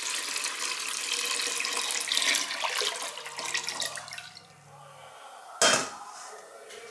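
Water poured from a jug into a saucepan, splashing steadily for about four seconds before thinning out and stopping. About a second later comes a single sharp knock as a stainless steel mixing bowl is set on a kitchen scale.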